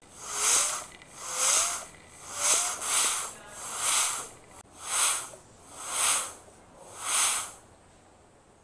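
Floor-standing bicycle pump worked by hand: eight strokes about a second apart, each a loud hiss of air rushing out of the open hose. The first three strokes carry a short rising squeak.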